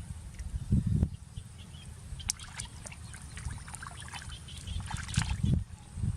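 Water splashing and trickling, with scattered small splashes and drips. A low rumble runs under it, with heavier thumps about a second in and again near the end.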